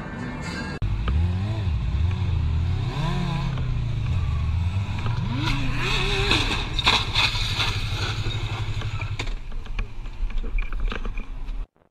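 Motorcycle engine running and revving, its pitch rising and falling, with a burst of scraping and clatter about six to seven seconds in as a motorcycle ahead goes down against a guardrail.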